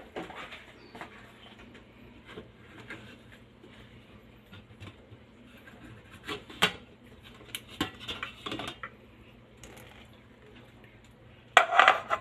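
Stainless-steel pressure cooker lid being twisted open and lifted off after the steam has been let out: scattered light metal clicks and taps, a sharper knock about six and a half seconds in, and a louder clatter near the end, over a faint steady hum.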